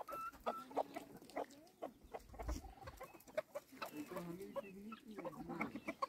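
Domestic chickens clucking in a low, wavering chatter, with scattered short clicks and a few brief high whistled notes near the start.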